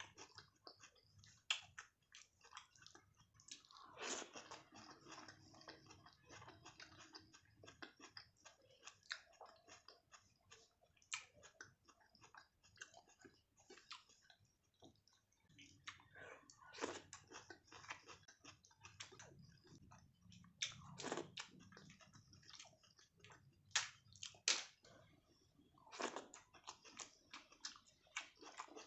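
A person eating rice and egg curry close to the microphone: irregular chewing and wet mouth clicks throughout, with a few louder bites.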